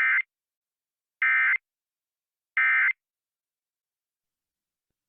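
Emergency Alert System SAME digital data tones: three identical short bursts of warbling two-pitch data about a second and a half apart. This is the End of Message code that closes the alert.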